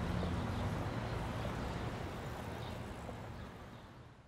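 Faint closing background sound of the soundtrack, a low hum with hiss and no speech, fading out steadily until it drops to silence at the very end.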